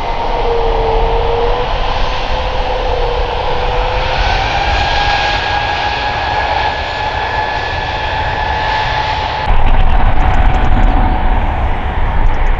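Airbus A320 jet engines running, a steady rush with whining fan tones that shift slightly in pitch. About three-quarters of the way through, it cuts suddenly to a louder, deeper rumble.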